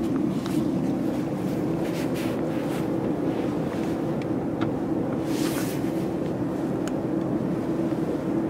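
Steady machinery drone with a constant hum from a parked Airbus A320 airliner and the ground equipment at its stand, with scattered light clicks and a brief hiss about five seconds in.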